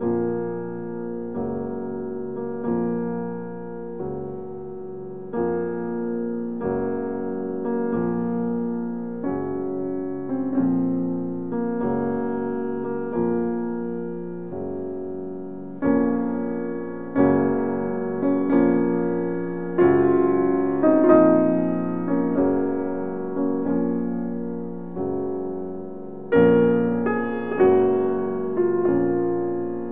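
Slow solo piano music: soft chords struck about every second and a half, each left to ring, growing louder about halfway through and again near the end.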